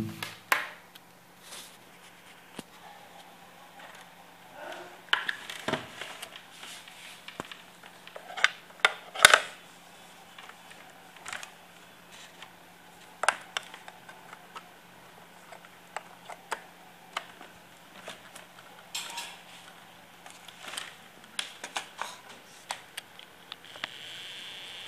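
Irregular clicks and light clattering knocks of hardware being handled, as a mouse is plugged into a Siemens KTP900 Basic touch panel and its cables are moved about, with a faint steady hum underneath.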